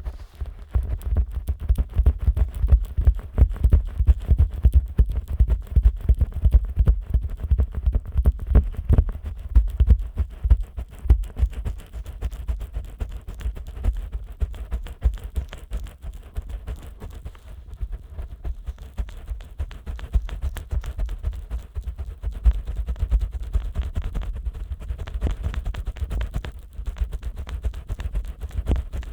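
Fingers rubbing, pressing and patting on the silicone ears of a 3Dio binaural microphone, slick with Vaseline: a rapid, continuous run of close, low thumps and rubs.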